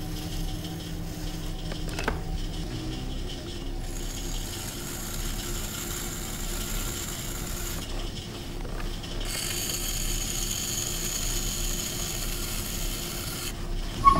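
Electric potter's wheel running with a steady hum while a metal trimming tool scrapes leather-hard clay from the foot of an upturned pot, in two long scraping passes. A sharp click near the end.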